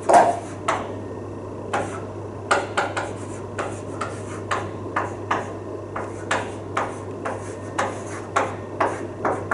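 Chalk writing on a blackboard: short taps and scratches as each stroke lands, about two or three a second, the sharpest at the start, over a low steady hum.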